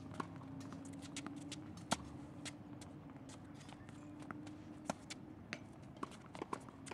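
Tennis balls being struck by racket and bouncing on a hard court: a string of sharp pops, the loudest about two seconds in and again about five seconds in, among lighter footsteps on the court. A faint steady hum runs underneath and stops about five seconds in.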